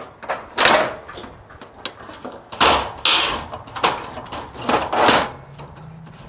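Swenson Shear Snap Table Pro being worked by hand: its long lever handle is raised and brought down against steel roofing sheet, giving a string of sharp clunks and clatters, about six in four seconds, unevenly spaced.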